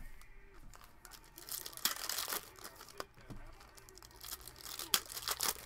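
A foil trading-card pack (2019-20 Panini Prizm basketball) being torn open and crinkled by hand, in two bursts of tearing and crackling: one about two seconds in and another near the end.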